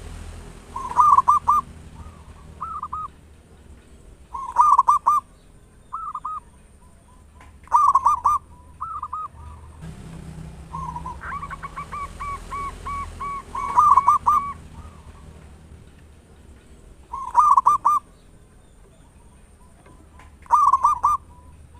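Zebra dove (perkutut) cooing: loud, warbling coo phrases about every three to four seconds, with softer single coos between them. A run of quick, evenly spaced notes comes in the middle.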